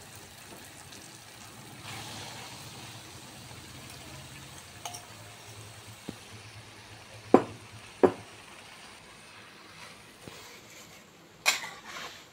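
Red spice paste sizzling softly in oil in a metal pan as minced meat is added, with a metal spatula knocking sharply against the pan twice, about seven and eight seconds in, and once more near the end as stirring begins.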